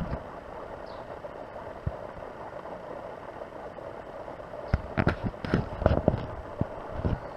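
A cat scratching and digging with its paws in loose soil in a plastic basket: a quick run of scrapes starting about two-thirds of the way in, over a steady background hum.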